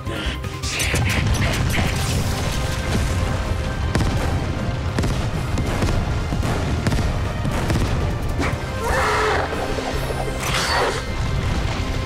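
Cartoon missile barrage sound effects: a string of explosions as the missiles hit the ground, with a continuous low rumble, over background music. Louder bursts come about a second in and twice near the end.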